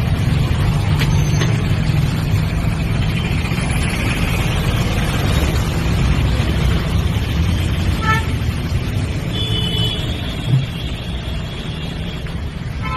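Road traffic noise: a steady low rumble of vehicles, with a short pitched tone about eight seconds in and thin high tones around ten seconds.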